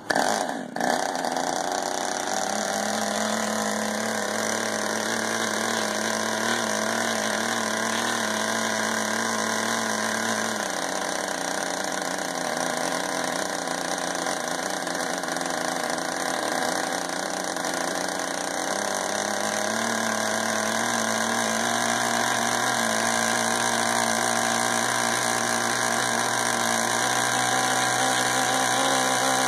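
K&B .61 two-stroke glow model engine starting the moment its propeller is flipped with a stick, then running fast and steady with a high buzzing note. Its note shifts about ten seconds in and again near nineteen seconds while the Perry carburetor is adjusted by hand; the carburetor has a newly fitted main needle valve.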